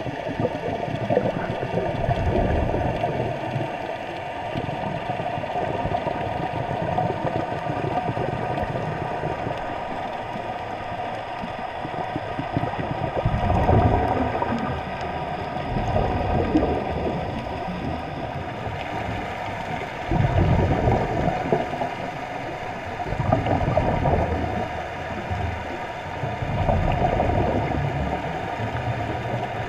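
Muffled underwater water noise picked up by a submerged camera: a dull rushing and sloshing that swells and fades every few seconds.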